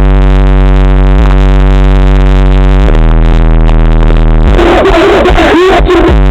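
Engine running very loud at steady speeds, its pitch shifting with short glides a few times. About four and a half seconds in it turns rough and warbling for over a second, then settles back to a steady run.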